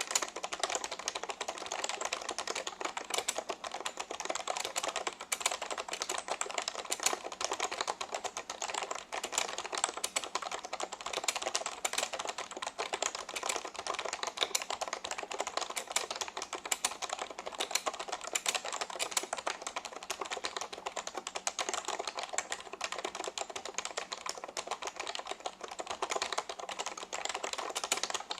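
Continuous rapid typing on a vintage Reuters DK3000 keyboard with Alphameric key switches and thick keycaps: a dense, steady stream of keystrokes with no pauses.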